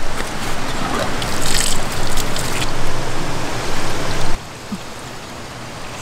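Crunching steps on gravel with loud rustling handling noise. After a sudden drop about four seconds in, water from an outdoor tap runs steadily into a stainless steel pot.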